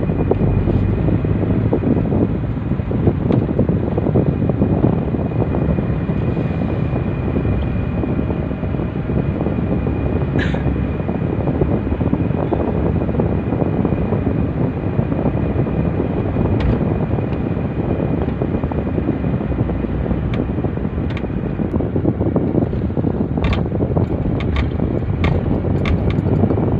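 Steady interior noise of a car being driven, road and engine noise mixed with the air-conditioning fan blowing, under a faint steady whine. A few light clicks come in, mostly near the end.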